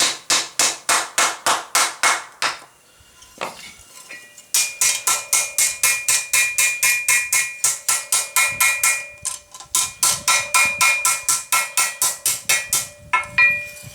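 Blacksmith's hand hammer striking hot flat bar steel on an anvil in quick, even blows, about four to five a second, with a ringing note after each blow. A short run of blows is followed by a pause of about two seconds, then a long run.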